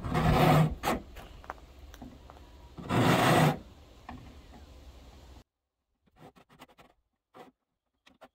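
Tape measure and hands rubbing and scraping against a metal downspout: two loud scrapes about three seconds apart. After that the background noise drops away and a run of faint short scratches follows.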